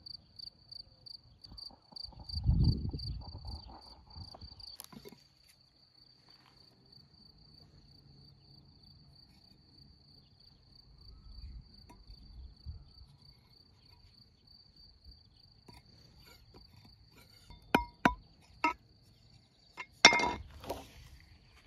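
A cricket chirping steadily in a high, evenly pulsed trill. There is a dull thump a few seconds in and several sharp knocks near the end.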